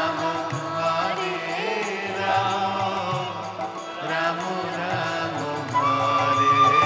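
Live stage music: a sung, chant-like melody over instrumental accompaniment. A long held high instrumental note comes in near the end.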